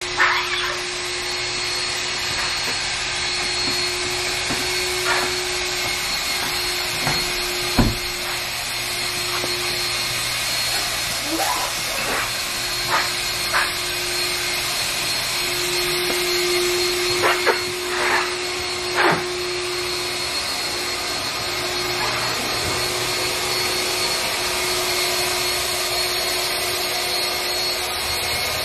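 A motor runs steadily throughout, an even whooshing drone with a hum and a thin high whine, the sound of a vacuum or blower type machine. About a dozen short squeaks and taps break through it, from a wet sponge and towel working over the car's glass and paint.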